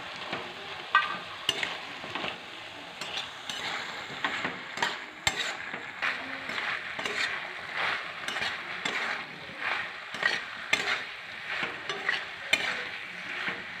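A metal spatula stirring and scraping bottle gourd stems, greens and vegetables in a metal wok as they fry in poppy-seed and mustard paste: a steady sizzle under irregular scrapes and clatters against the pan.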